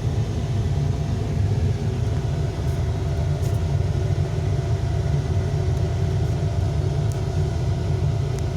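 Large hydraulic excavator's diesel engine running steadily: a deep, even rumble with a faint steady whine above it.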